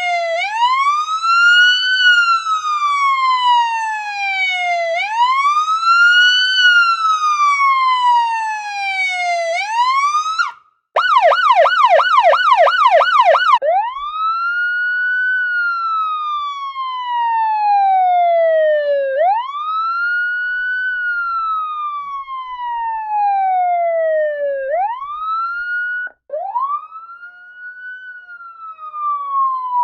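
Police sirens in sequence: a wail rising and falling about every five seconds, a brief cut about ten seconds in, a fast yelp for about three seconds, then a slower wail with a quick rise and a long falling sweep.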